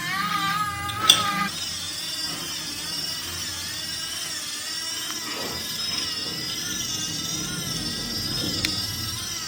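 High-pitched whine of a small electric motor running steadily, its pitch wavering slightly, with a lower wavering tone in the first second and a half.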